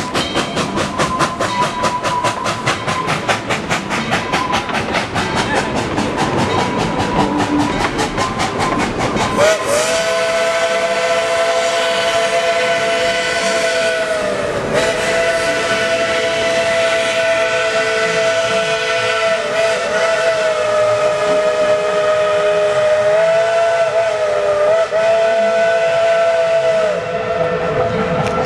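Steam locomotive ET&WNC No. 12, a Baldwin 4-6-0, going past with a rapid, even beat. About a third of the way in its chime whistle starts and blows one long, several-toned blast, with a few brief dips in pitch, until shortly before the end.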